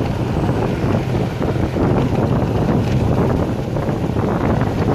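Steady wind rush on the microphone of a moving motorbike, with its engine and the surrounding street traffic running underneath.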